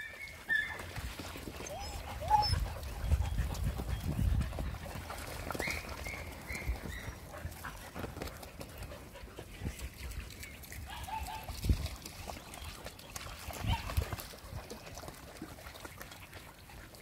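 Several dogs playing: a few short high-pitched yips, a quick run of three about six seconds in, over scuffling and splashing from dogs wading in a shallow pond.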